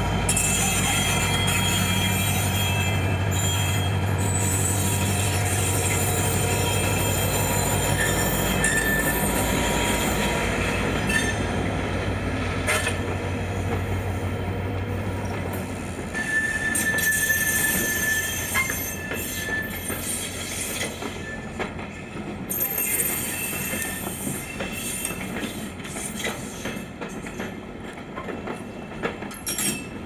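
GT22 diesel-electric locomotive pulling out, its engine running with a steady low drone as it passes. From about halfway the passenger coaches roll past with clicking wheels and brief high wheel squeals.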